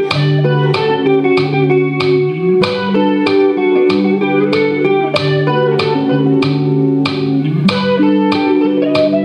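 Live rock band playing an instrumental passage: electric guitars and bass guitar holding sustained chords and notes over drums keeping a steady beat of about two hits a second, with the low notes sliding upward twice.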